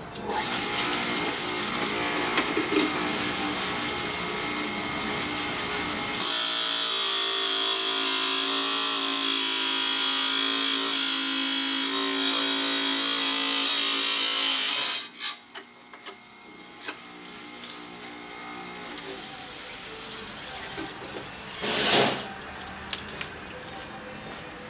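Small electric wet tile saw running, its motor starting just after the beginning. From about six seconds in, the sound turns louder and harsher as the blade cuts through a thin circuit board fed across the table. About fifteen seconds in it stops abruptly, leaving only a few small knocks.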